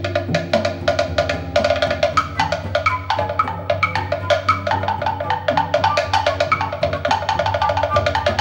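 Chinese drum struck with quick stick strokes, with an electroacoustic backing track of repeating pitched notes and a low steady drone.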